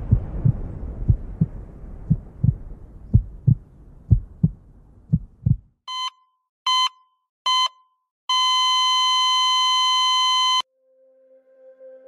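Heartbeat sound effect thumping in pairs over the fading rumble of an explosion, stopping about six seconds in. Then a heart monitor beeps three times and goes into one long flatline tone that cuts off suddenly: the sign of cardiac arrest. A low ambient drone begins near the end.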